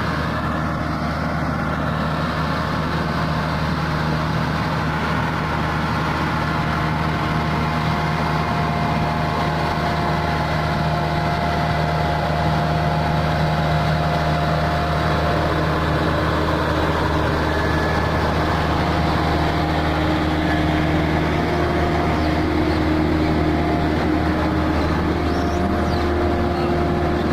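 Heavy diesel engine running steadily at an even speed, a constant low drone with no revving.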